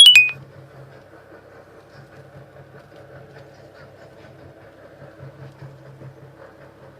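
BMW 135i's turbocharged 3.0 L inline-six running at a steady idle, with faint irregular ticking in it: the rattle the owner is recording. A brief, loud burst with a beep-like tone comes right at the start.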